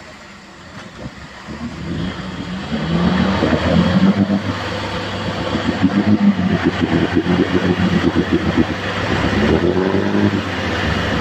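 Suzuki Katana 4x4 engine revving hard, the pitch rising and falling, as a stuck off-roader is winched out of deep mud. It starts quieter and grows louder about two seconds in.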